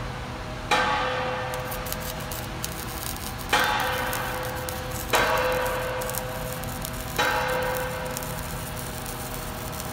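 Steel being struck on the steel rack structure: four loud, irregularly spaced metallic clangs, each ringing on like a bell and fading over a second or two.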